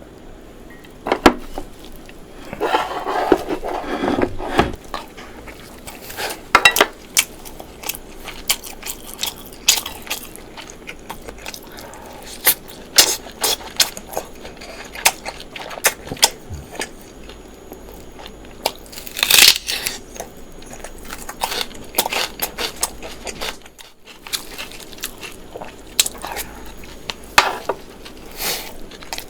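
A person chewing and biting food close to the microphone: many sharp, crunchy clicks and wet mouth sounds. There is a longer noisy burst of chewing a few seconds in and another loud one about two-thirds of the way through.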